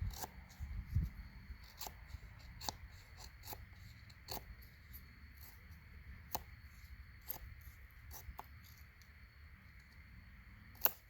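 Knife blade shaving and scraping soft, ant-eaten wood: irregular short scrapes and clicks, closer together at first and sparser later, with one sharper click near the end.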